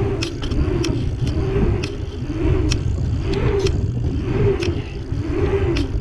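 Scott Scale 930 29er hardtail rolling over asphalt pump-track rollers, heard through an action camera's microphone under heavy wind rumble. The knobby tyres hum in a pitch that rises and falls about once a second with each roller, and the bike gives scattered sharp rattling clicks.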